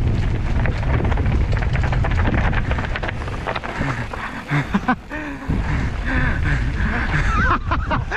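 Wind buffeting the microphone over the rumble and rattle of a mountain bike riding a rough trail. A voice calls out briefly in the second half.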